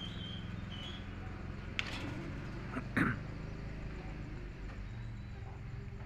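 Caged hill myna giving one short call about three seconds in, over a steady low hum, with a few faint high chirps from other birds near the start.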